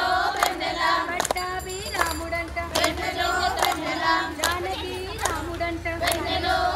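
A group of women singing a devotional song together while clapping their hands in a steady rhythm, a clap a little under every second.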